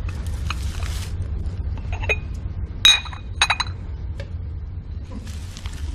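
Glass jars clinking as they are handled: a faint click about two seconds in, one sharp ringing clink near three seconds, then a couple more quick clinks, over a steady low hum.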